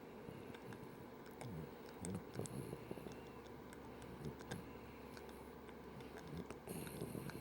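Puppy snoring softly in her sleep, an irregular run of low breaths with small clicking sounds scattered through.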